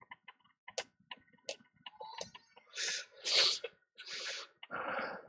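Handling noise at a microsoldering bench: a scatter of light clicks, then several short rustling noises, the loudest about three and a half seconds in.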